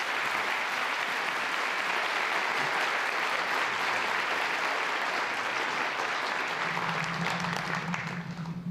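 Audience applauding steadily in a large auditorium, the clapping thinning out near the end as a low steady hum comes in.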